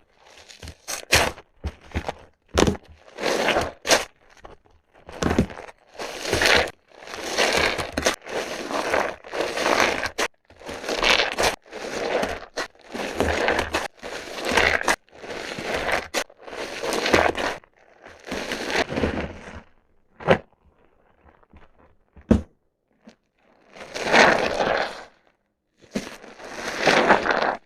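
Water-soaked soft bar soap being squeezed and crushed by hand, giving a run of crunching squeezes about once a second, with a short lull about three-quarters of the way through.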